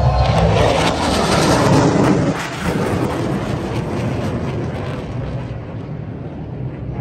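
Fighter jet flying past low overhead: a loud jet-engine roar whose pitch falls as it passes, then fades away.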